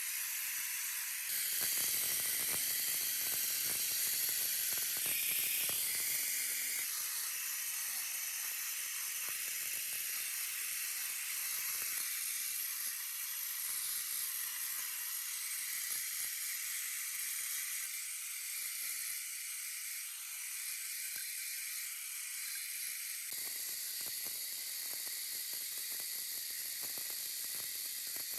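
Steady high hiss with a dense fine crackle, changing abruptly a few times.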